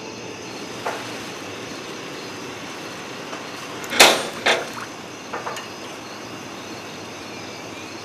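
A single sharp knock or bang about halfway through, followed by a few lighter knocks, over a steady background hiss.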